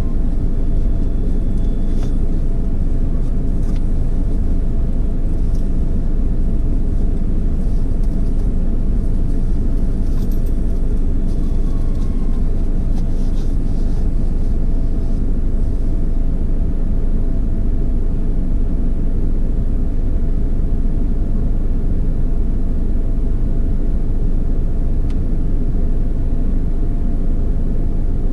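Automatic drive-through car wash machinery running around a vehicle: a steady, loud, low rumble with a constant hum.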